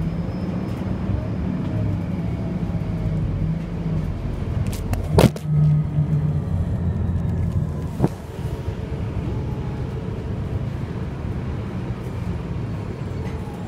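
Cabin of an Orion VII NG diesel-electric hybrid bus in motion: a steady low drivetrain hum and road rumble. About five seconds in, a sharp knock as the handheld phone is dropped, then a smaller click about three seconds later as it is handled.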